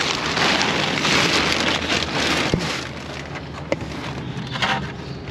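Thin plastic sheeting crinkling and rustling right at the microphone for the first few seconds, then quieter handling with a few light knocks.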